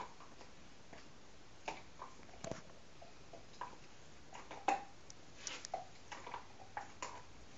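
A dog gnawing on a bone treat: faint, irregular crunching and clicking bites with short pauses between them.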